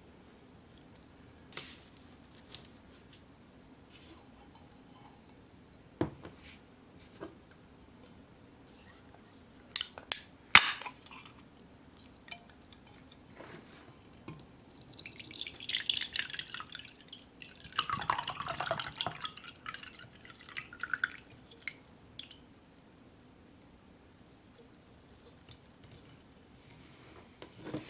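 A ring-pull drink can is handled and cracked open with a few sharp clicks about ten seconds in. Then juice is poured from the can into a glass mug, a splashing pour lasting about six seconds.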